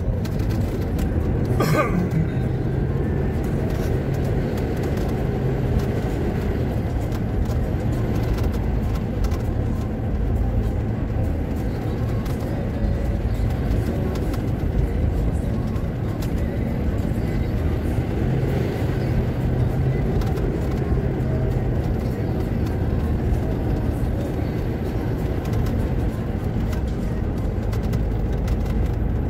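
Car driving on a wet road, heard from inside the cabin: steady low engine and tyre noise, with a short knock about two seconds in.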